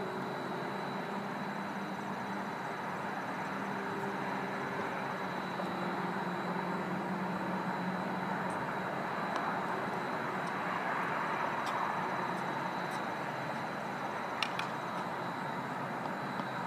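Steady outdoor background noise with a constant high-pitched tone running through it, and a few faint ticks, the clearest a quick double tick near the end.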